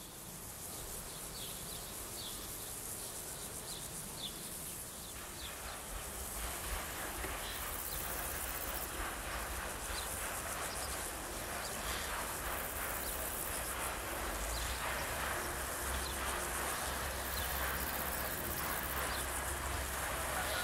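Insects buzzing and birds chirping now and then in grassland, with a low rumble building through the second half as the diesel-hydraulic DB class 614 railcar approaches from a distance.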